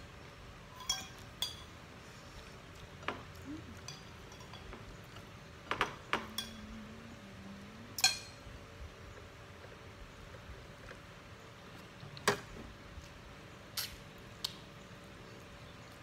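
Metal fork and spoon clinking and scraping against ceramic plates during a meal: scattered sharp clinks every second or two, the loudest about halfway through and again about three-quarters through.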